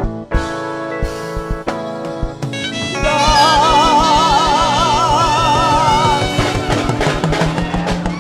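Live gospel band music: drum-kit hits under sustained chords, then about three seconds in a long held note with wide vibrato rises over rapid, evenly spaced drum beats.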